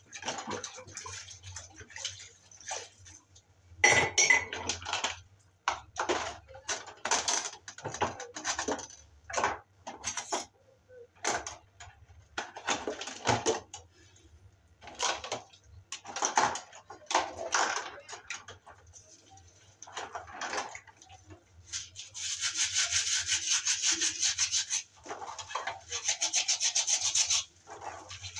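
Dishes being washed by hand: a sponge scrubbing and the clinks and knocks of metal pots, a knife and wooden spoons in a basin, in short irregular bursts. Near the end comes a longer unbroken stretch of scrubbing.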